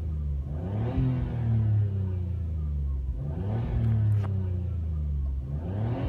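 Nissan Skyline R34 GT-R's RB26DETT twin-turbo straight-six free-revved while stationary, heard from inside the cabin. It is blipped three times, each rise in revs quick and each fall back slower.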